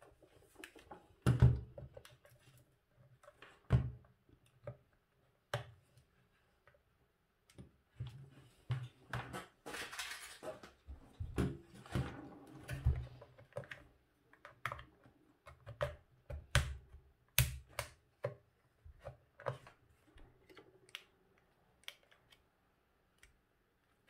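Plastic housing of a Braun hair dryer being handled and worked on with a small screwdriver during disassembly: irregular clicks and knocks, a few of them sharp, with a longer scraping stretch about ten seconds in.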